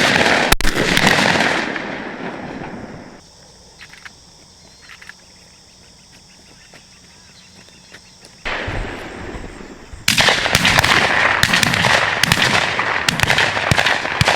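Shotguns firing at doves in a rapid run of shots from several guns, with the reports echoing and trailing off. There is a volley at the start, a quiet gap in the middle, and another, longer flurry of shots from about ten seconds in.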